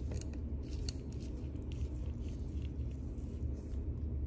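Light clicks and scrapes of a metal hex driver working at a small grub screw, bunched in the first two to three seconds, over a steady low hum.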